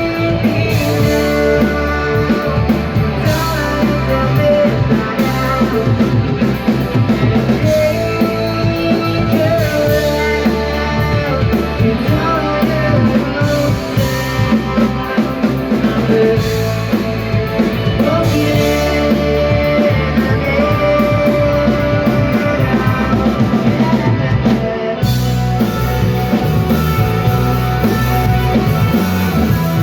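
Rock band playing live: drum kit, electric guitar and bass, with a singer.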